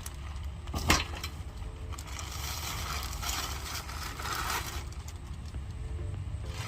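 A sharp click about a second in, then scraping and rustling as the folded pop-up greenhouse frame is handled and its parts shift against each other, over a steady low hum.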